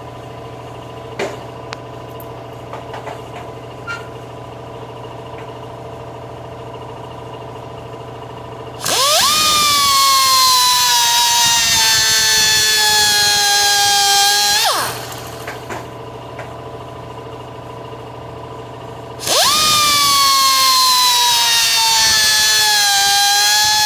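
Die grinder cutting metal conduit in two runs, a high whine over a steady hiss, starting about nine seconds in and again near the end. Each run's pitch starts high and sags slightly. Before the first run there is only a quieter steady hum with a few light clicks.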